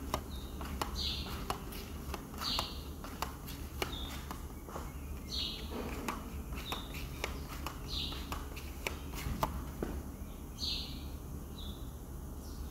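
A small bird chirping, short calls coming every second or two, often a longer note followed by a shorter one, over a steady low hum with scattered light clicks.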